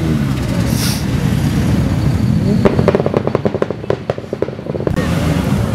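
Widebody Nissan Silvia's engine running as it passes, then about two and a half seconds in a rapid, irregular string of sharp exhaust pops and crackles lasting about two seconds.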